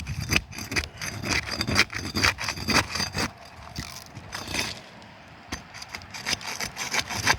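A roof shingle being pried up and torn loose from the sealed shingle beneath it: a quick, irregular run of scraping and cracking, thinning out in the second half. The tearing is a sign that the sealed shingles are pulling chunks out of each other, which the roofer takes to show the roof cannot be repaired.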